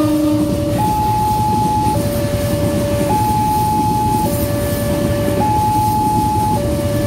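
Level-crossing warning alarm sounding a two-tone signal, a low and a higher tone alternating about once a second, over the low rumble of an electric commuter train passing the crossing.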